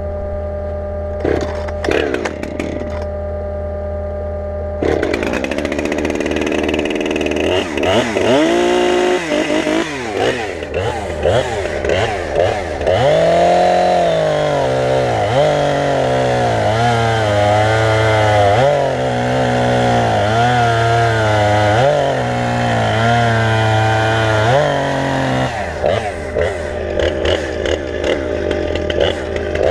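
Husqvarna 455 Rancher chainsaw started after a steady engine hum in the first few seconds, then revved and cutting through logs. Its pitch rises when revved and dips for long stretches as the chain loads down in the wood, again and again.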